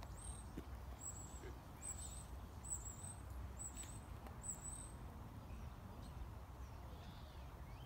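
A small bird chirping: a high, thin chirp repeated about once a second, stopping a little past halfway, over a steady low rumble.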